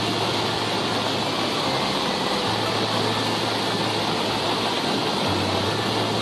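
Steady rushing water noise, with a low hum underneath that shifts in pitch every couple of seconds.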